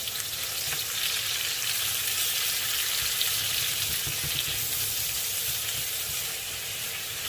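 Garlic, onions and ginger sizzling steadily in hot olive oil in a pan, stirred now and then with a spoon, with a few low knocks about four seconds in.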